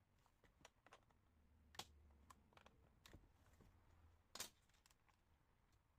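Near silence with a scatter of faint, sharp clicks and light taps, the clearest about two seconds in and again just after four seconds.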